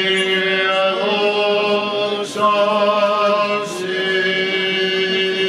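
A man's voice chanting Orthodox liturgical chant, held on long steady notes that step to a new pitch every second or so.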